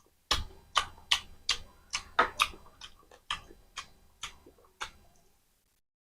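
Close-miked chewing of crunchy food, about a dozen sharp crunches in a steady rhythm of two to three a second, stopping about five seconds in.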